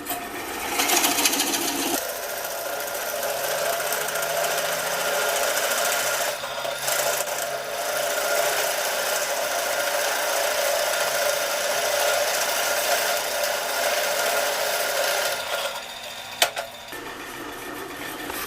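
Rockwell drill press running at about 425 RPM with a spade bit boring into wood, a steady cutting and motor sound, before the cut ends near the end and the press runs on more quietly with a few clicks.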